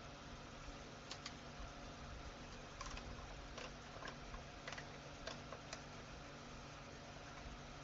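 Faint, scattered light metal clicks of a hex key working the socket-head screws that hold an aluminium part, over a low steady hum.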